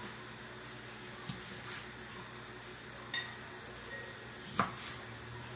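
A few scattered light taps of a kitchen knife against a wooden cutting board as orange quarters are trimmed, the loudest near the end, over a steady faint hiss.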